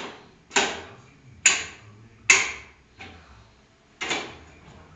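Powered stair-climbing hand truck's climbing mechanism cycling, giving a sharp clunk about once a second, each dying away quickly, one of them softer.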